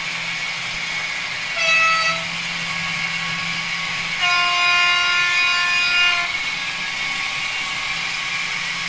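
Model freight train of cement tank wagons rolling along the track with a steady running hum. A locomotive horn from the model's sound decoder sounds twice: a short toot about two seconds in, then a longer blast of about two seconds.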